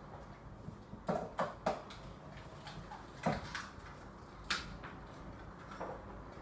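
A few light clicks and knocks, spread out with quiet between them, from containers and utensils being handled while water is added to the slime mix.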